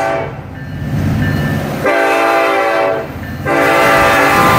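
Diesel freight locomotive's air horn blowing for a grade crossing: a blast that ends just after the start, a shorter blast about two seconds in, then a long blast from about three and a half seconds on. The locomotive's engine rumbles low in the gaps between blasts.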